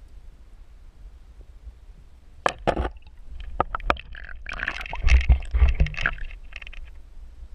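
Water and handling sounds heard through a submerged camera in a shallow river as a smallmouth bass is released by hand. There is a steady low rumble, sharp clicks and knocks from about two and a half seconds in, and a burst of muffled splashing and thumping around five to six seconds in.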